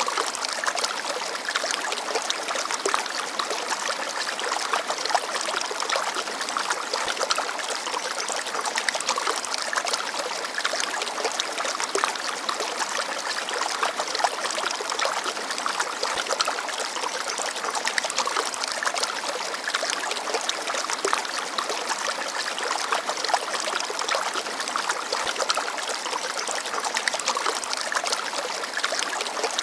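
Small stream babbling and trickling steadily over stones, with many small splashes and plinks in the flow.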